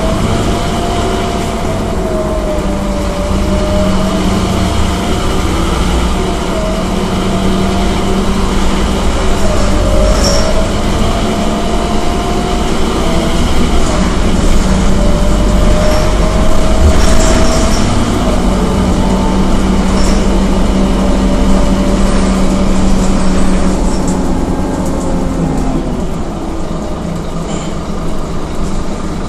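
Scania K230UB city bus heard from inside the passenger cabin while driving: a deep engine and road rumble with a whine that slowly rises and falls as the bus speeds up and slows.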